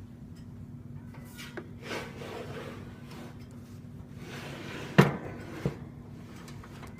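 Handling noises: a few clicks and rustles, then a sharp knock about five seconds in, which is the loudest sound, and a lighter knock just after it. A low steady hum runs underneath.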